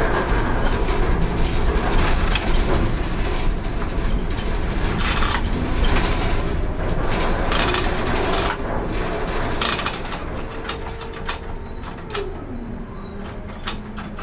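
Ship-to-shore container crane running, heard from the operator's cab: a steady rumble with rattling and clanks as the trolley carries the spreader from the ship's hold out over the quay. About ten seconds in the noise eases and a motor whine holds, then drops in pitch as the container is lowered onto a truck chassis.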